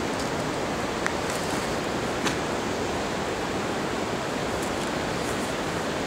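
Steady rushing background noise, with two faint clicks about one and two seconds in as the motorcycle's pannier is handled.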